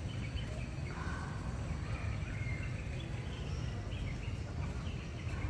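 Steady low background rumble with faint, scattered bird chirps.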